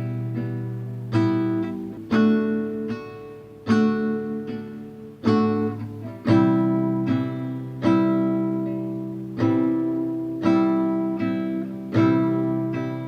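Acoustic guitar strummed slowly, cycling through E minor, D major and C major chords. Each strum rings out and fades before the next.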